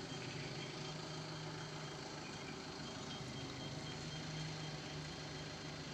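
Tata Yodha pickup's diesel engine running steadily at low revs as the truck creeps slowly forward, a low even hum.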